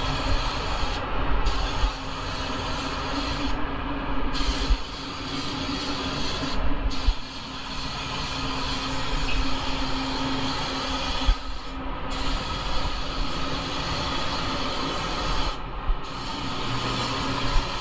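Compressed air hissing through a gravity-feed spray gun as a coat is sprayed on, with about five short breaks as the trigger is let off between passes, over a steady low rumble.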